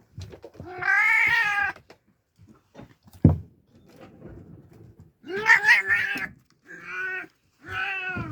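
Oriental kittens meowing: one long, loud meow about a second in, then three more meows in quick succession in the second half. A single sharp knock about three seconds in.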